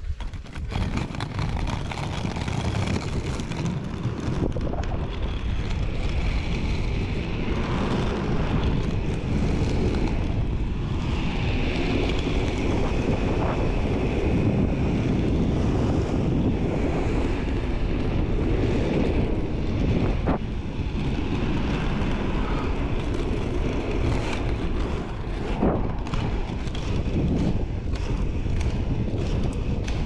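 Inline skate wheels rolling over rough asphalt, with wind buffeting the microphone. A steady, low rumbling noise that comes in suddenly at the start.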